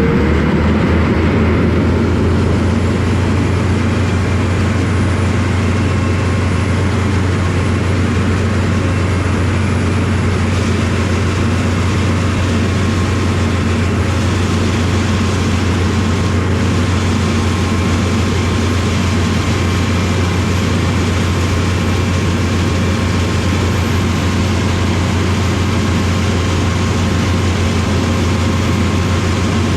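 Diesel engine of heavy corn-harvest machinery running steadily, a loud, even low drone with no change in speed.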